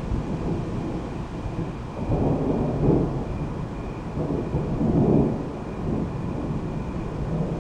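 Thunder rumbling almost without a break, swelling twice, about two seconds and about five seconds in.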